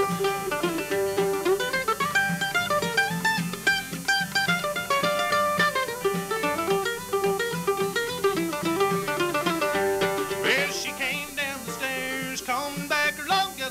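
Bluegrass band playing an instrumental break: a fast picked mandolin lead over acoustic guitar and upright bass. About ten seconds in, a fiddle comes in with sliding notes.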